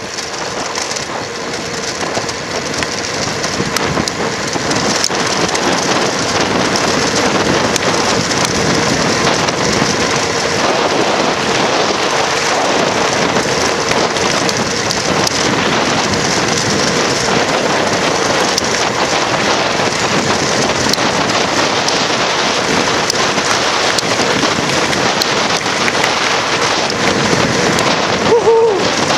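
Wind rushing over the microphone and tyres hissing on tarmac as a bicycle coasts fast down a steep hill, growing louder over the first few seconds and then holding steady. A brief squeak near the end.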